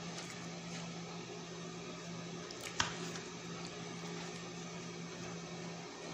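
Steady low hum of a running appliance or fan in a small room, with a single light tap a little before the middle.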